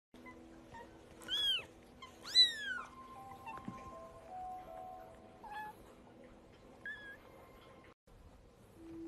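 A domestic cat meowing twice, about a second apart, each call rising then falling in pitch, the second louder, with a fainter short mew later on. Soft background music with held notes plays underneath.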